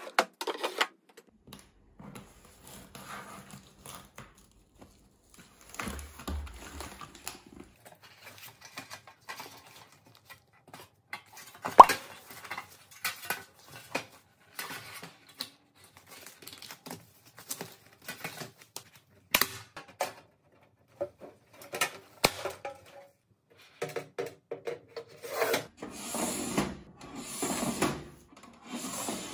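Flat-pack furniture being unpacked and put together by hand: protective paper and cardboard rustle, and laminated panels and shelf boards are handled with scattered light knocks and clicks. A longer stretch of rustling and scraping comes near the end.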